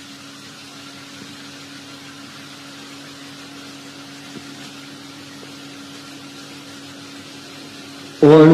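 Steady faint hum and hiss with a low held tone. Near the end a voice breaks in loudly, starting a melodic Quran recitation.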